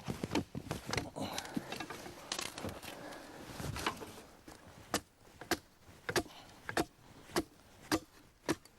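Hazel stake being chopped with a blade to sharpen its end to a point: irregular cutting and scraping at first, then steady sharp chopping strikes a little slower than two a second from about halfway in.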